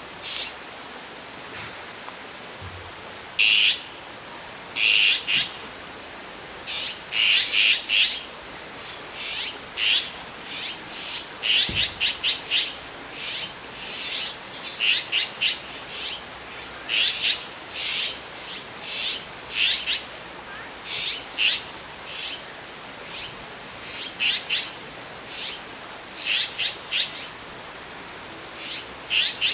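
Azure-winged magpie fledglings calling, short high calls over and over, a few at first and then in quick runs from about three seconds in: the begging of young birds waiting to be fed.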